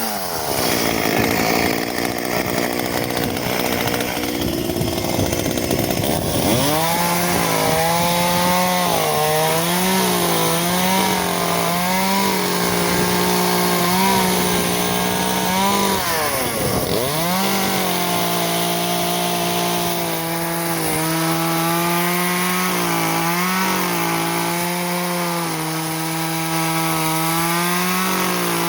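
Echo CS-370 two-stroke chainsaw running at high revs while cutting tree limbs, its pitch wavering slightly under load. About 16 seconds in the revs drop sharply and climb straight back.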